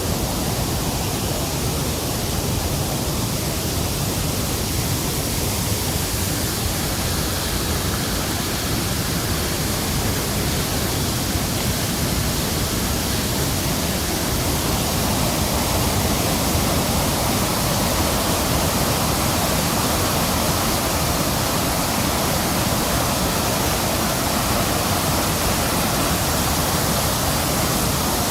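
Rain-swollen hillside waterfall, a normally small rivulet, pouring down with great force: a loud, steady rush of water that grows slightly fuller about halfway through.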